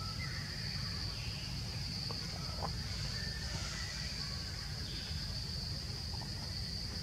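Steady high-pitched insect drone over a low rumble of background noise, with a few faint short chirps and ticks.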